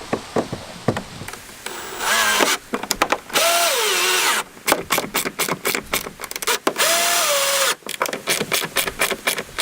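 Power drill driving #8-32 machine screws into nylon lock nuts, in three short bursts. In one burst the motor whine drops in pitch as the screw snugs up under load. Between and after the bursts comes rapid clicking from a socket wrench ratchet cranking the nuts tight.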